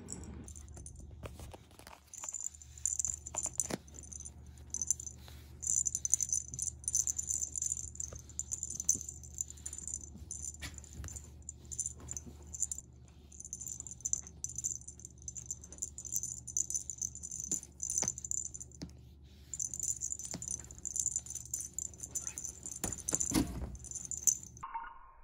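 A small bell on a feather wand cat toy jingles in repeated bursts as the toy is waved and batted by a cat, over a low steady hum and scattered soft knocks. There is one heavier thump near the end, then the jingling cuts off.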